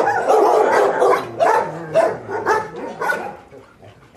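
Shelter dogs in their kennels barking, several calls overlapping at first, then single barks about twice a second that die down near the end.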